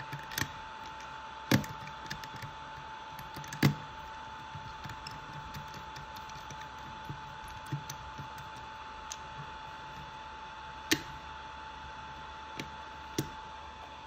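Scattered sharp clicks and taps of a precision screwdriver and small screws on a drone remote controller's plastic housing, the loudest about a second and a half, three and a half and eleven seconds in, over a steady faint high hum.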